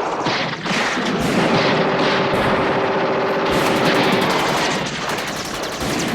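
Shootout sound effect: overlapping gunfire, single shots mixed with bursts of rapid automatic fire, almost without pause. A fast, even stutter of machine-gun fire stands out just past the halfway point.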